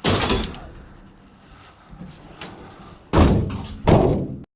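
Vehicle doors slammed shut: one heavy slam at the start, then two more about three and four seconds in.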